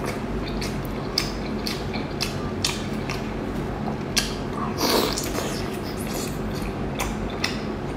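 Close-up eating sounds of spicy sea snails: wet chewing and smacking in irregular short clicks, with a longer, louder one about five seconds in.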